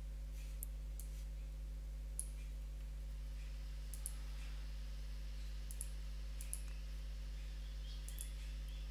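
Faint computer mouse clicks, about eight single clicks spaced irregularly, over a steady low electrical hum.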